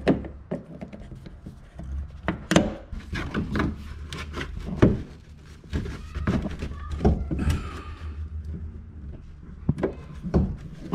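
Plastic push clips being pried and worked out of a BMW X5's plastic underbody panel with needle-nose pliers: irregular clicks, knocks and thunks of plastic, the loudest about five seconds in, over a steady low hum.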